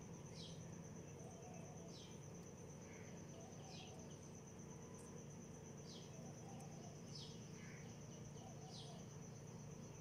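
A faint, steady, high insect trill runs throughout. Over it, a small bird gives about six short falling chirps, roughly one every one and a half seconds.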